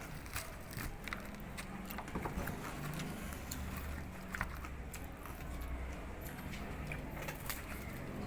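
Close-up chewing of crispy fried pork face skin, with scattered sharp crunches and clicks over a low steady hum.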